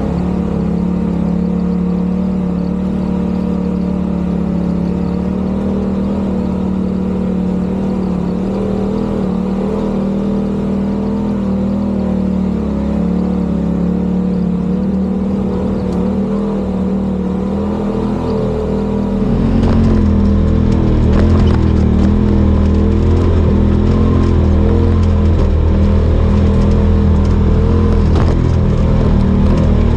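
Side-by-side UTV engine running at a steady, slightly varying pitch. About two-thirds of the way through it becomes louder and deeper.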